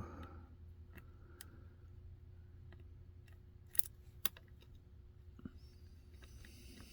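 Faint metallic clicks of a hook pick working the pins inside a pin-tumbler lock under tension. Scattered ticks, with two sharper clicks about four seconds in, over a steady low hum.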